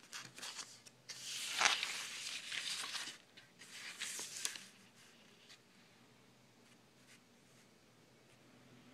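Sheets of textured paper printed with sheet music rustling and sliding as they are handled and shifted by hand, in two spells within the first five seconds, then only a few faint scratches.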